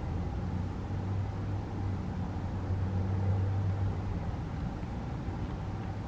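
Low, steady engine hum of a vehicle, swelling from about a second in and easing off after about four seconds.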